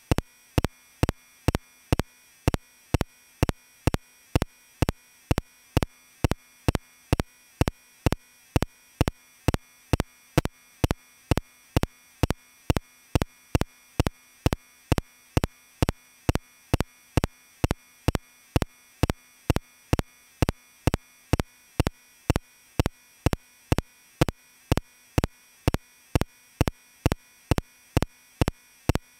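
Sharp clicks repeating evenly, about two a second, with near silence between them.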